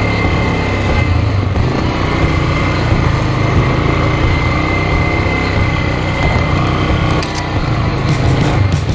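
ATV engine running steadily while under way, heard from a camera on the handlebars, with a thin steady whine over it.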